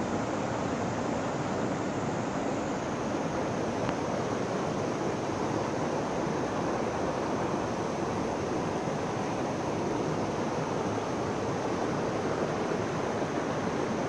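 Shallow mountain stream rushing over rocks and boulders, a steady, even rush of fast-flowing water.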